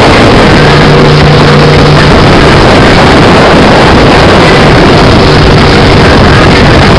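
Edge Marine Velocity LS 21-foot jet boat running at speed: a steady engine hum, with a low tone that comes and goes, under a heavy rush of wind and water. The whole sound is very loud.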